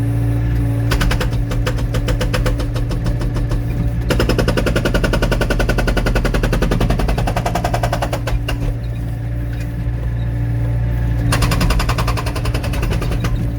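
Excavator-mounted hydraulic breaker hammering rapidly against a wet log to split it for firewood, in three runs: about a second in for three seconds, then straight on for nearly five seconds, then again for about two seconds near the end. The excavator's diesel engine hums steadily underneath.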